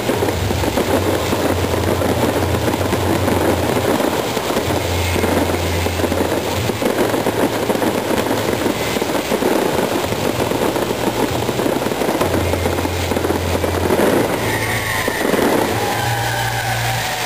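Fireworks display: a dense, continuous crackling of many small pops from bursting shells and fountains, over a low rumble that comes and goes.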